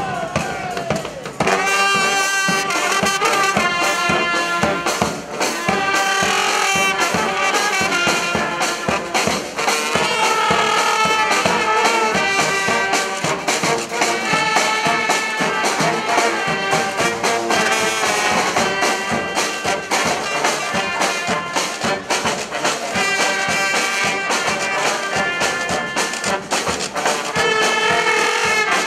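Street brass band playing, with trumpets and trombones together over sharp percussive hits. The full band comes in about a second and a half in.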